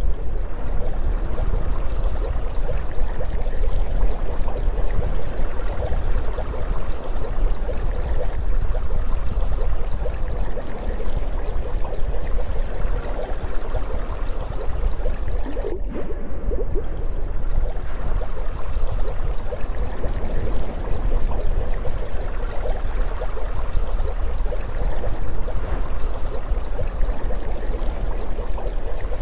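Underwater ambience sound effect: steady flowing, bubbling water noise over a deep, constant rumble.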